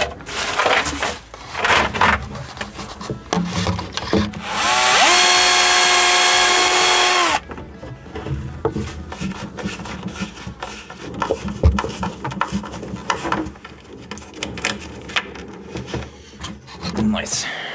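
An electric drill spinning up with a rising whine, running steadily for about two and a half seconds, then stopping abruptly. Clicks and knocks of hands handling gear come before and after it.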